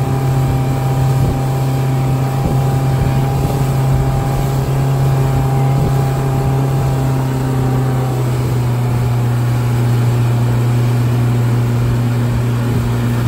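A 75 hp Honda four-stroke outboard motor running steadily under load, towing a tube at speed, a continuous low drone over the rush of water and wind.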